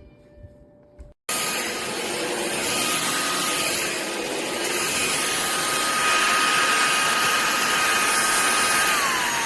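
Cordless stick vacuum running: a steady rush of air with a high motor whine that dips slightly in pitch near the end. It starts abruptly just over a second in, after the tail of some background music.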